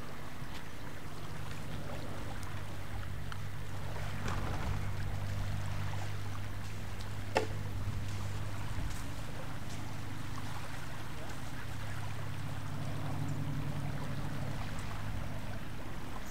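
A motor running steadily with a low, even hum that swells slightly a few times. A few faint clicks, and one sharp click about seven seconds in.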